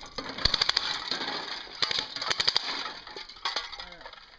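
Airsoft G36 rifle firing on full auto in several short bursts of rapid clattering shots, about three bursts over four seconds.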